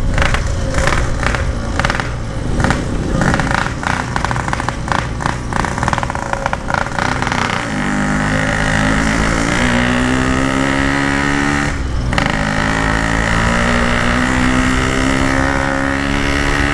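Yamaha RX-King two-stroke single-cylinder motorcycle engine through its stock-style exhaust, heard while riding. The sound is uneven and choppy for the first half. About eight seconds in it settles into a steady engine note that steps up in pitch, with a short break around twelve seconds, as from a gear change.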